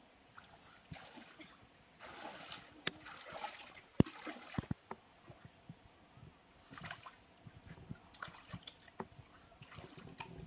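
Shallow stream water splashing and sloshing around a person's legs and hands as they wade and reach into the streambed, in uneven spurts. A few sharp clicks or knocks stand out, the loudest about four seconds in.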